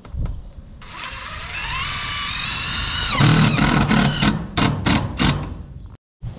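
Cordless DeWalt drill driving a fastener into a steel roof: the motor whines and rises in pitch as it spins up, then drops and bogs down as the fastener bites into the metal, followed by three or four short trigger bursts to seat it. The sound cuts off suddenly near the end.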